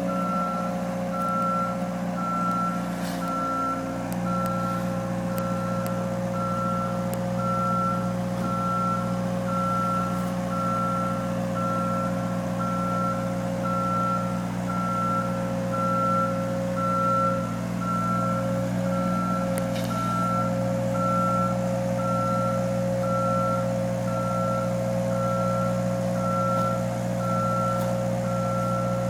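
Backup alarm of a construction vehicle beeping steadily at about one beep a second, over the vehicle's diesel engine running.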